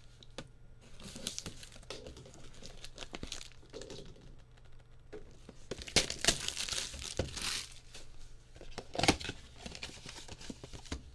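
Plastic and foil trading-card packaging being torn open and crinkled by hand, with the loudest rips about six and nine seconds in.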